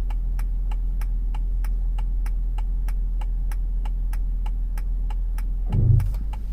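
Cabin sound of a 2007 BMW X3 3.0si being driven: a steady low drone with a rapid, even ticking, about four or five ticks a second, and a single low thump near the end.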